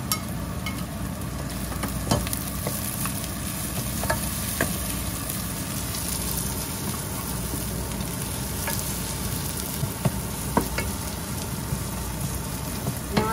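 Chopped onions with ginger-garlic paste sizzling as they fry in a pot, stirred with a wooden spatula, with a few sharp knocks of the spatula against the pot.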